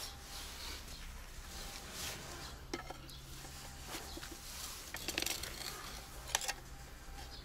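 Steel bar clinking and knocking against the hub of a KamAZ truck's brake drum: a few sharp metallic knocks, one about three seconds in, a quick cluster around five seconds and another near six and a half.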